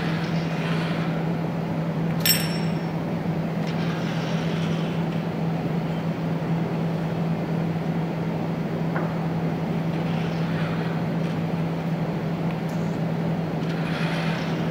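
Steady low machine hum with a constant noisy rush, and one sharp click about two seconds in.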